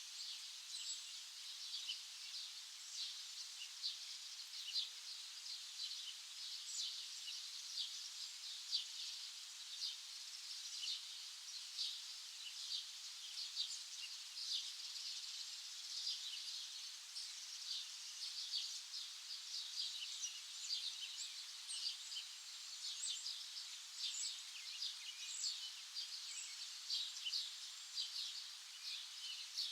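Many small birds chirping at once, a dense, continuous chorus of short high-pitched chirps.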